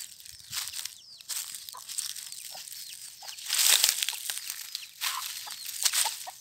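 Hen clucking in short soft notes while her chicks peep in high chirps, with loud crunching of dry leaf litter several times.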